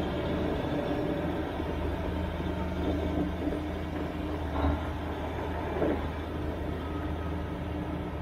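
Case IH 9280 four-wheel-drive tractor's 375-horsepower diesel engine running steadily as the tractor drives slowly, with two brief louder moments about four and a half and six seconds in.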